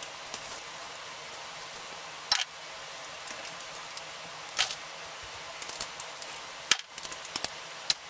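Scattered sharp clicks and light taps of metal bicycle parts being handled on a repair stand, several of them bunched together near the end, over a steady hiss.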